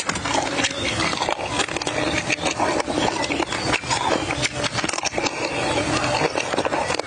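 Raw crab in a spicy, sour sauce being broken apart and eaten up close: the shell and legs crack and crunch, with wet chewing, in a dense run of sharp crackles and clicks.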